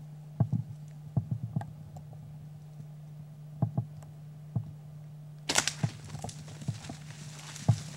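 Scattered soft knocks and taps from a handheld camcorder being handled, over a steady low hum. About five and a half seconds in, a rustling hiss starts and runs on with more taps.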